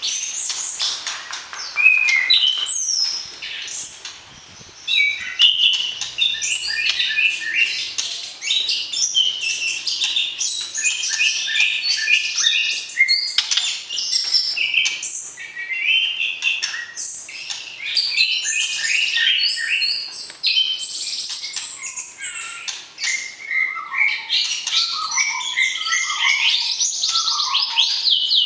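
White-rumped shama song: an unbroken stream of rapid, varied chirps and clear whistles, with lower whistled phrases in the last few seconds.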